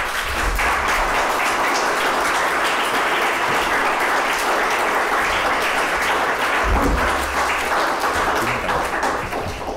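Audience applauding: a roomful of people clapping steadily, dying away near the end.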